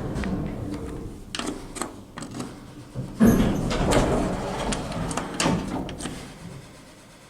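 Lift car's drive motor humming steadily, then dying away as the car stops, followed by a series of mechanical clunks and clicks from the lift's relays and doors, the loudest a little after three seconds in.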